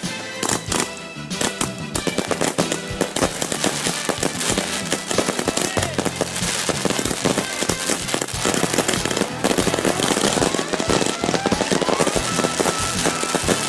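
Fireworks display: rapid, dense bangs and crackling of aerial shells bursting overhead, with music playing underneath.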